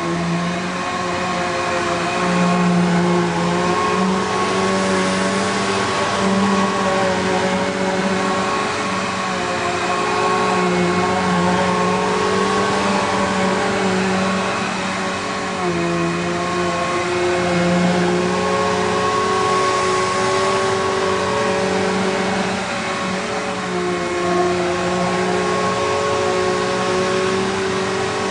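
Bissell PowerGlide Platinum upright vacuum cleaner running steadily, its motor hum wavering slightly in pitch now and then.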